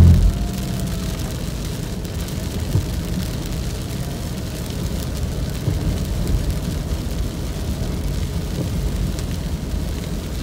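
Inside a moving car in heavy rain: steady low road and engine rumble with the hiss of rain on the car. A brief loud low bump comes right at the start.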